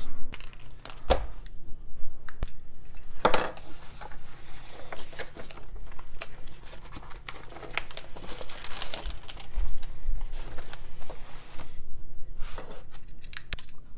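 Paper rustling and swishing as a large printed instruction booklet is handled and its pages shifted, with scattered light taps and clicks as it is moved about on a table.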